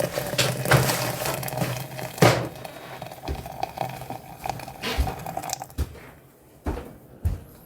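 Household handling noises: crinkling and rustling with scattered clicks and a sharp knock about two seconds in, over a steady hum that stops about three-quarters of the way through.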